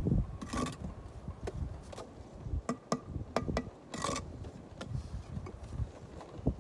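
Masonry work on brick and mortar: scattered light taps and clicks, with two short scrapes, one about half a second in and one about four seconds in.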